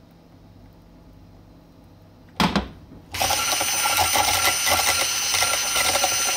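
A short sharp knock about two and a half seconds in. Then an immersion (stick) blender switches on and runs steadily with a constant motor whine, emulsifying egg yolk and oil into mayonnaise as the oil thickens it.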